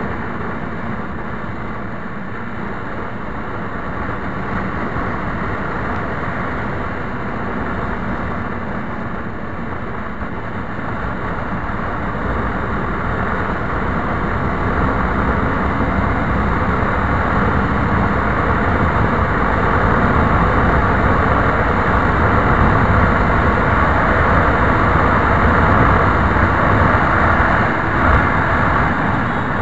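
Honda CBR250 motorcycle at cruising speed, around 110 km/h: steady wind rush over the microphone mixed with the engine running, the rush growing louder through the second half.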